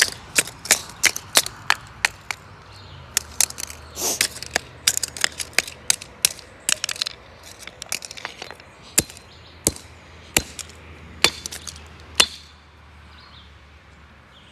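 A hammer striking an old Samsung flip phone again and again to smash it: quick sharp blows about two or three a second, thinning to a few spaced hits and stopping about twelve seconds in.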